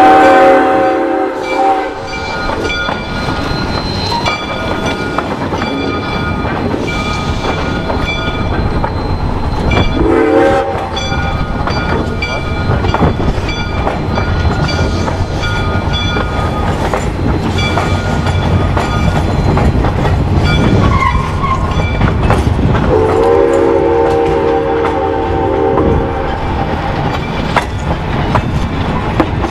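Soo Line 1003, a 2-8-2 Mikado steam locomotive, sounding its chime steam whistle over the steady rumble and clatter of the moving train. The whistle comes three times: a blast trailing off just after the start, a short one about a third of the way through, and a longer one near the end.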